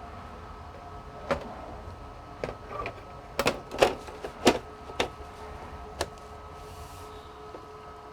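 A series of irregular clicks and knocks from computer parts being handled, about eight over five seconds and loudest in the middle, over a faint steady hum.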